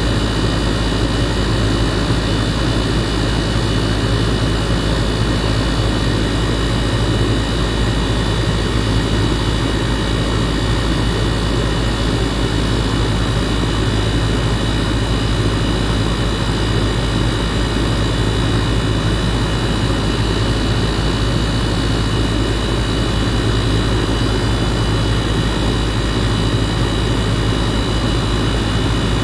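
2018 Goodman 2.5-ton gas pack running steadily in cooling mode, heard from beside its compressor: a loud, even hum from the compressor and condenser fan, with a few steady high tones.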